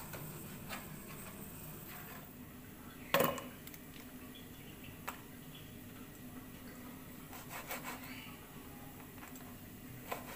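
A broad cleaver cutting salted squid on a plastic cutting board: irregular knocks of the blade against the board, the loudest about three seconds in.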